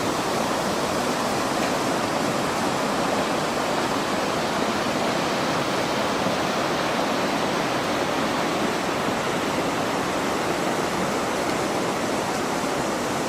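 Rushing floodwater: a steady, unbroken rush of moving water.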